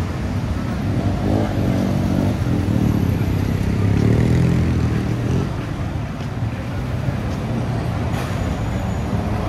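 Street traffic: a road vehicle's engine passing close by, loudest about four seconds in, over a steady wash of traffic noise.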